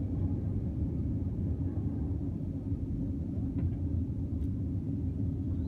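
Jet airliner cabin noise during the climb after takeoff: the steady low rumble of the engines and the air rushing past the fuselage, heard from a window seat.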